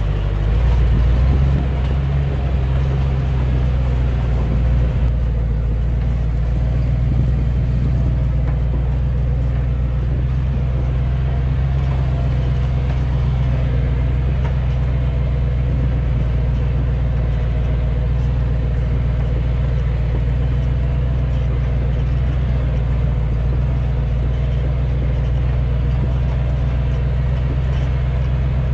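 Flatbed truck driving slowly along a dirt road while towing a road drag: a steady, unchanging low engine drone throughout.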